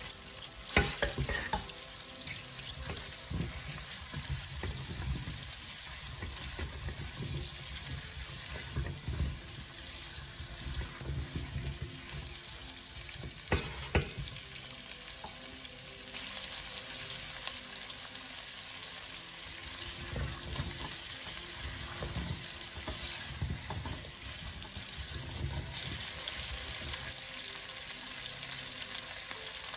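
Apple slices frying in oil and butter in a stainless steel pot with a steady light sizzle, stirred by a spatula that scrapes and knocks against the pot; sharp knocks about a second in and again around the middle.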